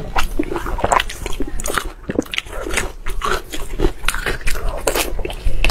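Close-miked chewing and biting of soft, sauce-soaked meat, with many sharp wet mouth clicks at an irregular pace.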